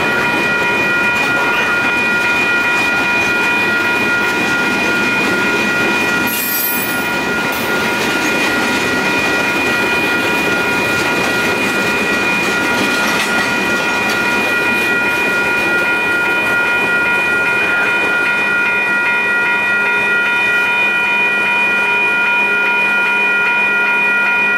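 Freight cars, tank cars and boxcars, rolling past over the rails with a steady clatter and rumble, while the crossing signal bells ring continuously. There is a brief high hiss about six seconds in, and the rolling noise thins in the second half as the last cars pass.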